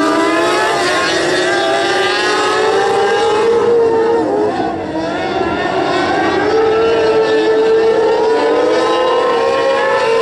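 A pack of winged open-wheel sprint cars racing on a dirt oval, several engines at high revs overlapping, their pitch rising and falling through the turns. The sound dips briefly a little under halfway through, then comes back up.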